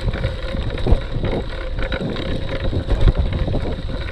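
Cyclocross bike being ridden hard through deep, soft sand: the tyres churning in the sand and the bike rattling in many short knocks, under a heavy rumble of wind on the camera microphone.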